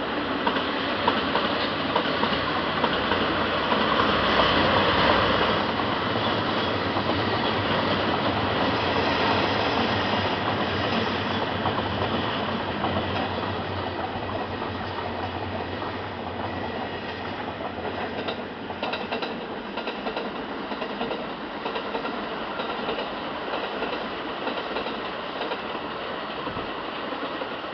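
Diesel-hauled freight train running past: the locomotive is loudest about five seconds in, then the wagons roll by with a rhythmic clickety-clack of wheels over rail joints, slowly growing quieter toward the end.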